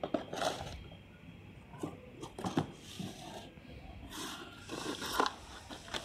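Cardboard boxes and packing being handled by hand: scattered rustles, scrapes and light taps as items are lifted out of a shipping carton and a small box is opened.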